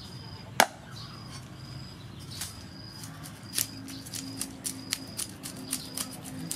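A single sharp knock of a cleaver on a wooden chopping board about half a second in, then from about three and a half seconds a run of quick scraping strokes, a few a second, as a knife scrapes the scales off a whole fish on the board.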